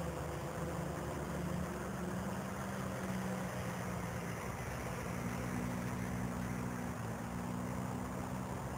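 Electric motors and propellers of a small quadcopter in flight, a steady buzzing hum whose pitch shifts slightly a few times as the motors adjust speed.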